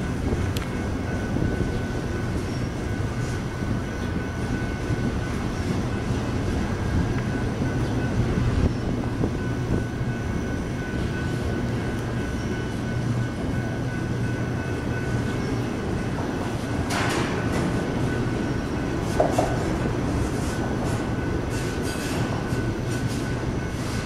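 Double-stack intermodal freight train rolling past: a steady rumble of steel wheels on rail with a faint high whine. There is a sharp clank about two-thirds of the way through, then a brief wheel squeal and a run of clicks.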